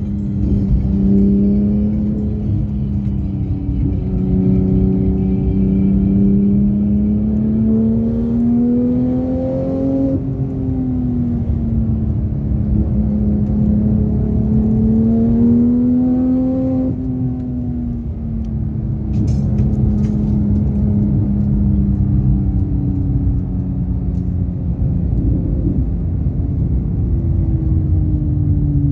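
Car engine heard from inside the cabin under a steady low road rumble, its pitch climbing as it accelerates and falling back as it lifts, twice over the first half, then holding a steadier, lower note.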